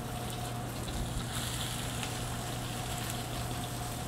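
Bacon-wrapped quail sizzling in hot oil in a steel skillet, growing louder about a second in as a second bird goes into the pan, over a steady low hum.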